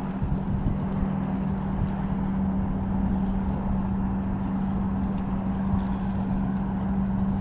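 A steady low engine drone holding one even pitch, with wind buffeting the microphone.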